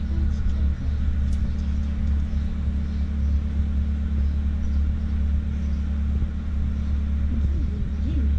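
A steady low engine rumble with a constant hum.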